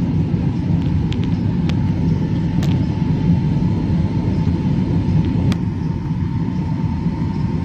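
Jet airliner cabin noise heard at a window seat during the climb after take-off: a steady, loud low rumble of engines and airflow with a faint steady high whine. A few light clicks come through about a second in, near two seconds in, and past five seconds in.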